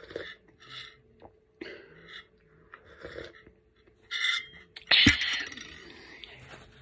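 Close-miked swallowing and gulping while drinking from a tumbler, a short gulp every half second to a second. About five seconds in there is one loud knock, the tumbler being set down.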